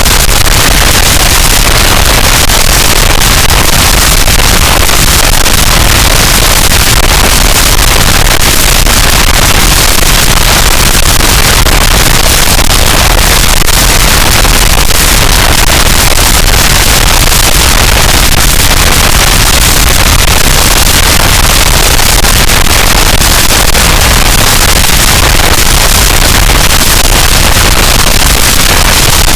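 Harsh noise wall: a loud, dense, unchanging wall of distorted static and rumble with no rhythm or pitch.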